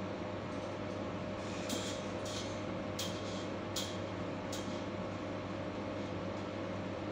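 Steady low hum of a ship's engines and machinery, with a constant tone running through it. Five short hisses come between about one and a half and four and a half seconds in.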